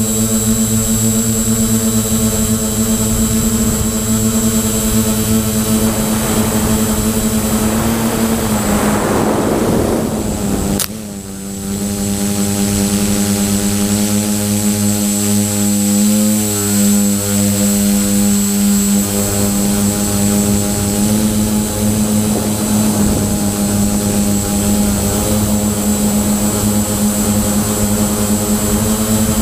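Quadcopter's four brushless motors (Multistar 2213-980) spinning 9x4.7 Gemfan props, a steady drone heard from the camera riding on the frame, with a thin steady high whine above it. The drone drops away briefly with a sharp click about eleven seconds in as the throttle comes off, then picks back up.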